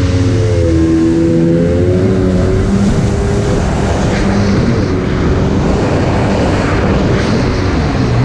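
Jet ski engine running under way, its pitch shifting in the first two seconds, over a steady rush of wind and water.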